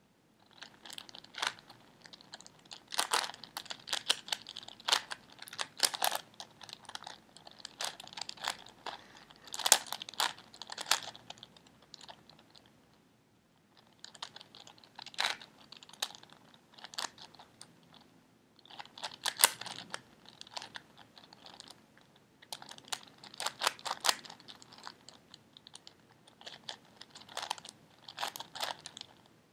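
Plastic 4x4x4 Rubik's cube being turned by hand: layers clicking and clacking in quick runs of turns, broken by short pauses, while edge pieces are paired up.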